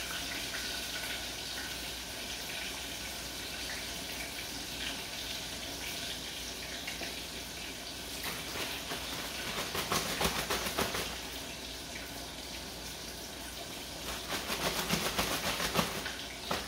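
Fish fillets frying in hot grease, a steady sizzle. Twice, in the middle and again near the end, a zip-top plastic bag of cornmeal and fish is shaken in quick rattling spells to coat the fillets.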